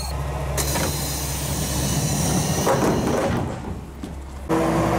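KiHa 47 diesel railcar idling at the platform, its engine giving a steady low hum, with a stretch of hissing about half a second in. Near the end the sound jumps suddenly louder with a steady hum.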